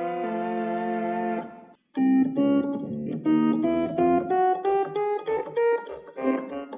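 A vintage Galanti Caravan portable organ holding a sustained chord, which cuts off about a second and a half in. After a brief silence, a quick melody of short, clipped notes over a pulsing bass begins.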